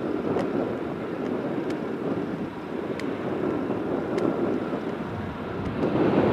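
Aer Lingus Airbus A320-family jet's engines running as it rolls along the runway, a steady rumbling rush heard from a distance, mixed with wind buffeting the microphone. The noise swells louder near the end.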